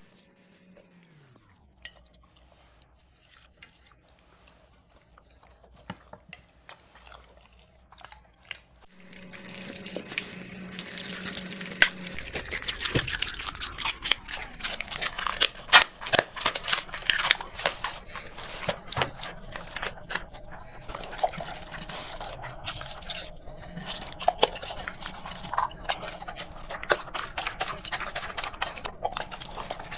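Dog eating dry food from a bowl: a rapid, irregular run of crunching and clicking that starts about nine seconds in, after a few scattered clicks.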